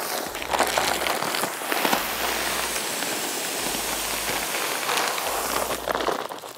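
Shelled corn kernels poured from a plastic feed bag onto dry leaf litter, a steady dense hiss of falling grain for about four seconds. Before it comes the crinkle of the bag's plastic being cut open and tipped.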